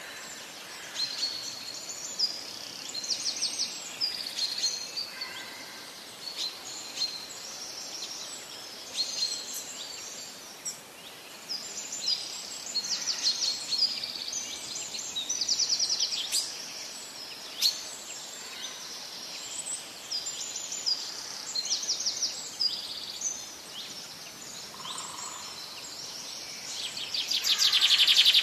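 Small songbirds chirping and trilling over a faint steady background hiss, with many short calls throughout and a louder rapid trill near the end.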